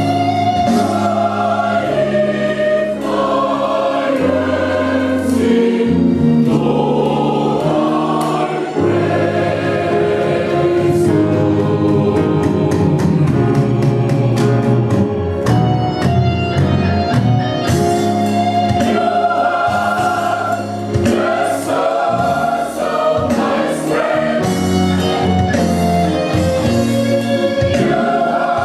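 Mixed gospel choir singing in full harmony, with a saxophone playing along.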